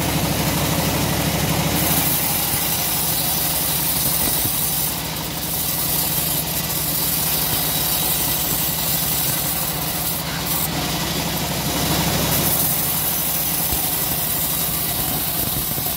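Homemade bandsaw mill running steadily, its blade sawing lengthwise through a short teak log under the steady drone of the machine's motor. A high hiss from the cut strengthens about two seconds in and again near the end.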